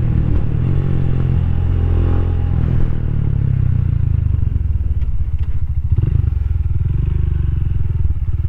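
Rusi Classic 250's single-cylinder LX166FMM engine running under way. Around the middle the revs drop to a slow, pulsing putt, then pick up again.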